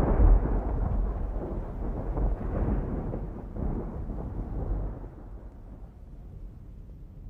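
Rolling thunder from an approaching thunderstorm: a deep rumble that is loudest at the start and dies away over several seconds, much quieter about five seconds in.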